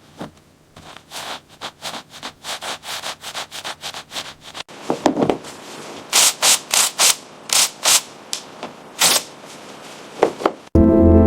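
Repeated back-and-forth abrasive rubbing strokes on a surface, in two edited passages: the first a fairly even run of about three to four strokes a second, the second sharper and more spaced out after a sudden cut. Music with sustained organ-like chords starts abruptly near the end.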